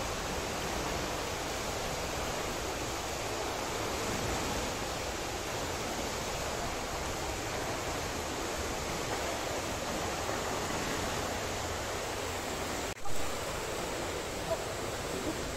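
Steady splashing and watery hiss of an indoor swimming pool as a child kicks along on a foam kickboard. About thirteen seconds in the sound cuts out for an instant, then a short loud thump.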